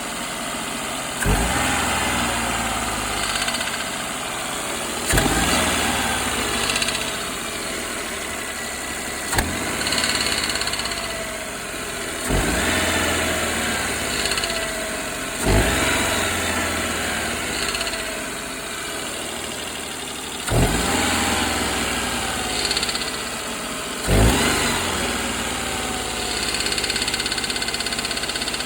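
Daihatsu Esse's small three-cylinder engine running, its throttle blipped about seven times so the revs jump and fall back each time. It carries the cold-engine rattle ('karakara') that the owner connects with the timing chain and oil control valve, a noise that came back after being repaired at inspection.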